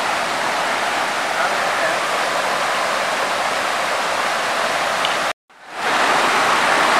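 Steady rushing of mountain-river white-water rapids. About five seconds in the sound cuts out completely for a moment, then fades back in.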